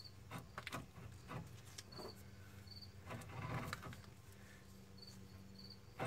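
Worn front wheel bearing of a Pontiac Vibe GT rumbling roughly as the bare hub is spun by hand. It is faint, with scattered light clicks and a louder rough stretch about three seconds in, and the rough running is the sign of a failed bearing. Crickets chirp in short repeated pairs throughout.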